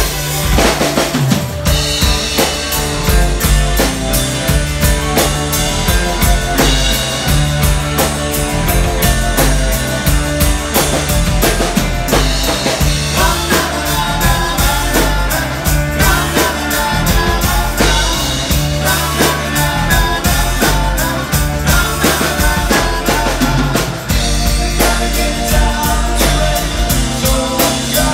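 Live rock band playing: a drum kit keeping a steady beat under bass and electric guitars.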